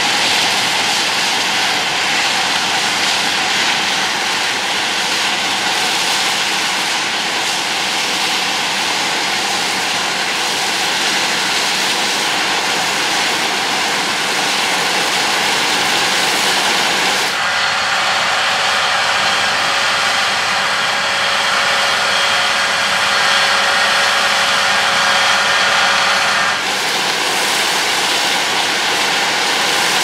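A John Deere X9 1100 combine harvester runs steadily under load while threshing wheat, a loud rushing machine noise. About halfway through, the sound shifts to one with several steady high whines on top. About three seconds before the end it returns to the plain rushing noise.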